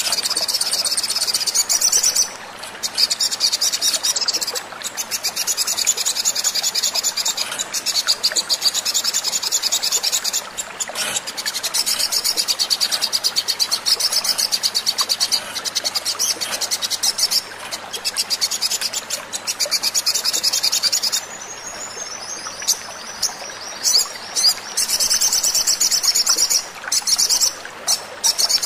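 Sogon sunbird song played as a lure recording: a rapid, high-pitched chattering trill in long runs with brief breaks, thinning to scattered chirps about three-quarters of the way through before the fast trill resumes.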